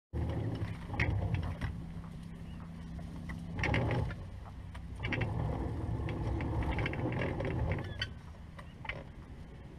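Bow-mounted electric trolling motor humming steadily, with scattered rustles and clicks as tules brush the boat. The hum gets quieter about eight seconds in.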